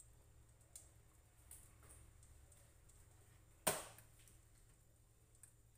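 Quiet kitchen with a spatula knocking once, sharply, against a wok about three and a half seconds in, and a few faint ticks before it.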